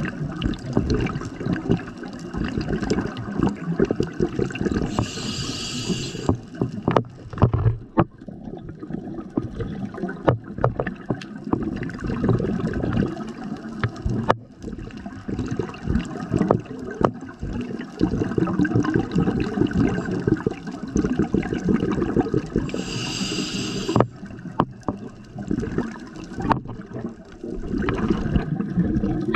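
Scuba diver breathing through a regulator underwater: long rumbling, gurgling rushes of exhaled bubbles, and a short hiss of inhaled air about five seconds in and again near the end, with scattered clicks between.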